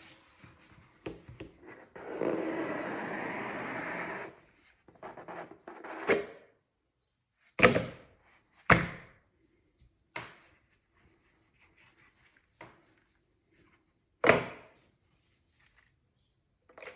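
Hands handling an item and its packaging up close: a steady rasp lasting about two seconds, then a handful of separate sharp taps and thunks, three of them louder than the rest.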